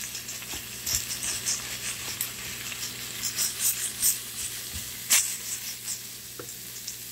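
Raw ground pork sizzling in hot oil with sautéed onions in a frying pan, being broken up and stirred with a wooden spatula. A steady crackling hiss with scattered sharp spatters, and one louder click about five seconds in.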